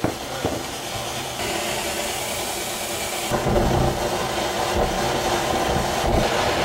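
Electronic noise played live through a mixer: a dense hissing drone, shaped on the knobs, that grows gradually louder. It starts with a click, gets brighter about a second and a half in, and its low end suddenly fills out about three seconds in.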